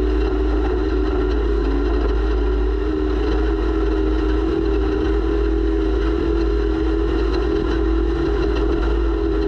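Off-road race vehicle's engine running at steady revs, heard through its onboard camera: one held engine note with slight rises and dips over a constant deep rumble.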